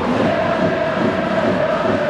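Large crowd of football supporters singing a chant in unison, with one long held note over the mass of voices.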